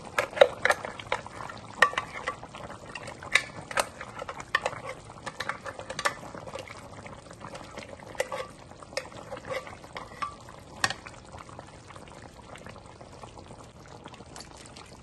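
A utensil scraping and tapping against a blender jar as thick ground roasted-coconut paste is emptied into a pot of simmering chicken curry: sharp, irregular clicks and knocks that thin out after about eleven seconds, over a faint bubbling of the curry.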